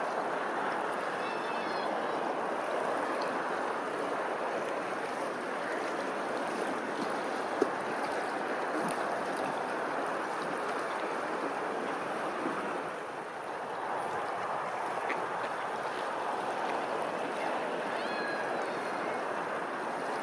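Running water, a steady rushing splash. Faint high chirps come twice, near the start and near the end, and there is a single sharp click about seven seconds in.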